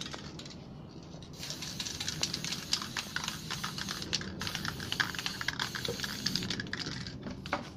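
Aerosol spray paint hissing from a can in several bursts, with a crackly, spitting edge, about a second and a half in and stopping shortly before the end.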